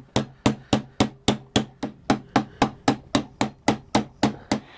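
Hammer tapping steadily on metal, on pliers gripping a steel rod on a toy robot arm's gearbox frame: about four quick, even taps a second.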